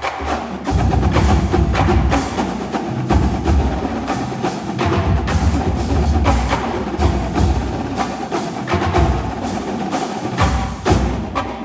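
College marching drumline playing: a fast stream of snare and tenor drum strokes over heavy bass drum hits that come and go in groups.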